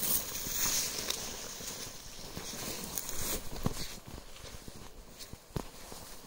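Footsteps along a forest trail through undergrowth, with rustling and a few irregular soft thumps.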